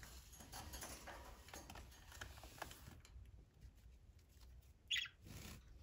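Faint rustling and light scratching as a hand strokes a green-cheeked conure standing on the wire floor grate of its cage, with small clicks over the first three seconds. A short high-pitched sound about five seconds in.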